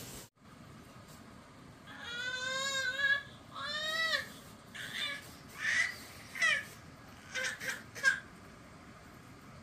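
Young child crying in a string of short, high-pitched wails that rise and fall, starting about two seconds in. The first cry is the longest and wavers.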